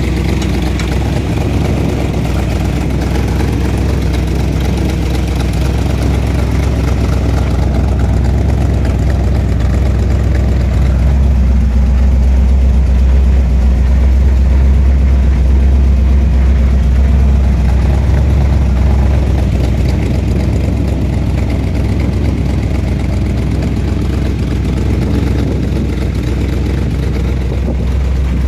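A truck engine idling steadily, heard as a low, even rumble.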